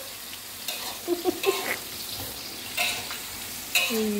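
Bean sprouts sizzling in a metal wok as they are stir-fried, a spatula scraping and knocking against the pan several times.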